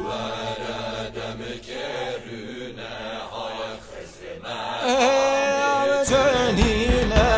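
Middle Eastern folk music soundtrack: the bass drops out and the track goes quieter, with scattered percussive strikes, then a solo voice comes in with long wavering sung notes about five seconds in, and the fuller band returns about a second later.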